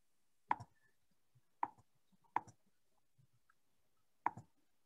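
Four sharp, single clicks at uneven spacing, from clicking back through presentation slides on a computer.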